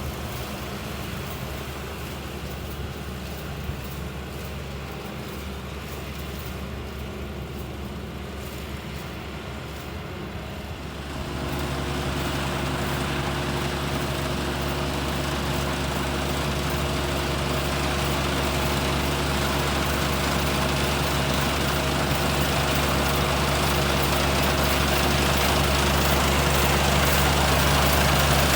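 Rice combine harvester engine running steadily. About eleven seconds in the sound becomes suddenly louder and fuller, then keeps slowly growing louder.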